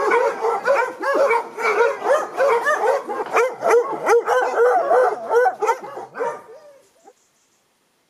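Several dogs barking and yelping together, a rapid run of short overlapping calls that stops abruptly about six and a half seconds in.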